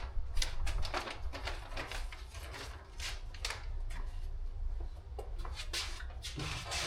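A run of light clicks, taps and rustles as the side-step parts, hardware and packaging are handled, over a steady low hum.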